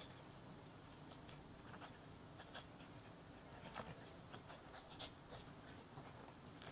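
Faint, irregular scratching and scuffing of a small dog's paws and body on a gravelly dirt path as it rolls and plays with a ball.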